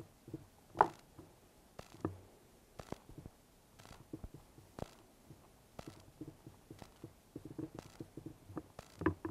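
Small clicks and soft rubbing of hands working a rubber boot onto a greased RC buggy shock absorber body and handling the shock's plastic and metal parts. The sharpest click comes about a second in, with a cluster of clicks near the end.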